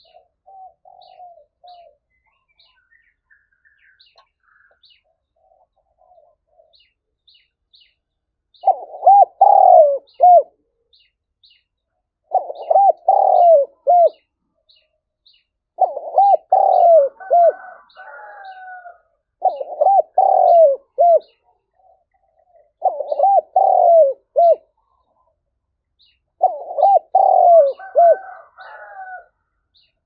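Spotted dove cooing. A few soft coos come near the start, then from about a third of the way in it gives six loud phrases of several coos each, repeating about every three and a half seconds.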